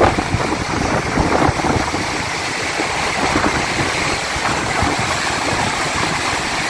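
Mud-laden floodwater of the Marpha Khola rushing over a stony bed: a loud, steady rushing with a low rumble, the flow thick with mud and silt.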